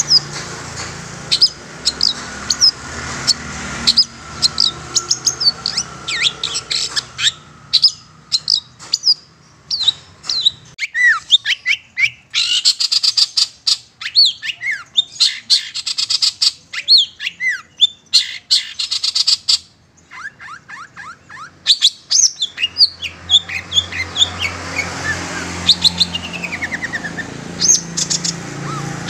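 Long-tailed shrike (cendet) calling: a run of quick sharp chirps, then a long stretch of harsh scratchy chatter in the middle, a short lull, and more chirps and trills toward the end.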